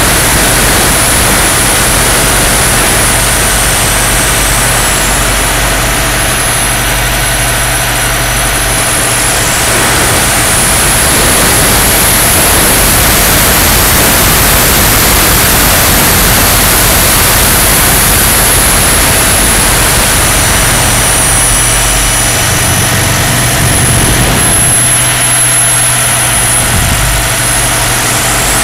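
Large radio-controlled model EC135 helicopter in flight, heard from a camera mounted on the model: loud, steady engine and rotor noise. A thin high whine climbs in pitch and falls back through the middle.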